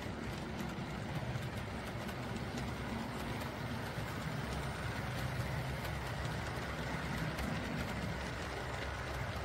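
OO gauge model diesel locomotive running past with a train of coaches: a steady low diesel engine sound from its sound fitting, with the wheels rolling over the track.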